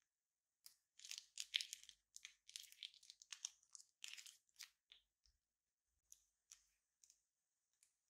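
Thin plastic piping bag crinkling and crackling as it is squeezed empty of clear slime and handled. The sound comes as a rapid run of short crackles for about four seconds, then thins out to a few faint ticks.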